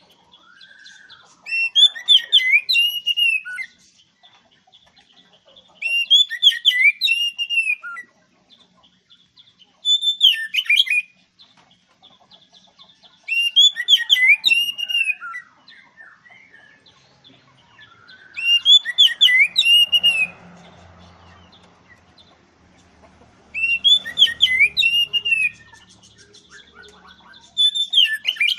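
Oriental magpie-robin (kacer) singing loud, whistled song phrases, each one to two seconds long, repeated about every four seconds, with softer twittering between them.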